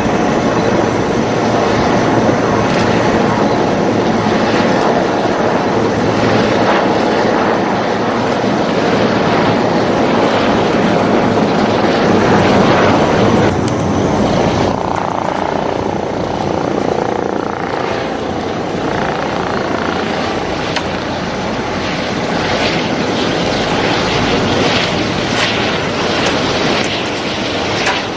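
Jet aircraft flying, a continuous rushing engine noise that is heaviest about twelve to thirteen seconds in and thins out after.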